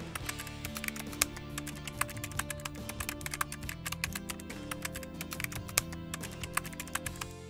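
Rapid, irregular keyboard typing clicks over background music with held notes.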